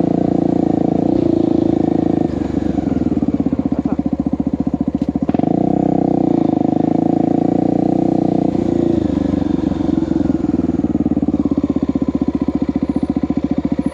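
Honda XR250 Tornado's single-cylinder four-stroke engine running under way on trail: held at steady throttle, then eased off about two seconds in to a slower, pulsing chug. It is opened up again around the middle and eased off once more a little later.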